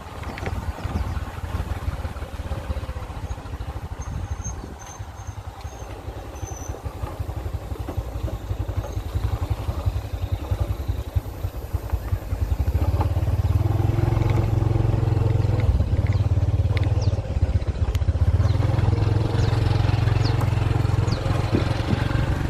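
Motorbike engine running under way, with wind noise over the microphone. The engine grows louder and steadier a little past halfway.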